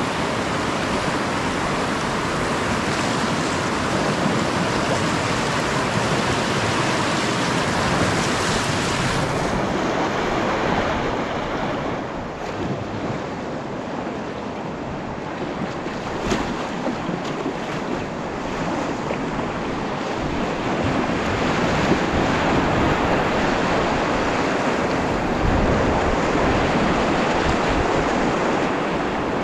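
Whitewater rapids of a mountain river rushing steadily, heard from water level among kayaks; the rush eases for a few seconds in the middle and changes abruptly at a few points.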